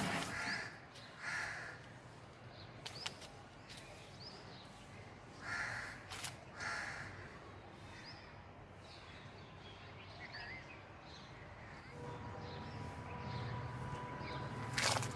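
Birds calling outdoors: several short harsh calls in the first half, with a few brief high chirps between them. About twelve seconds in a steady low hum starts, with a faint held tone over it.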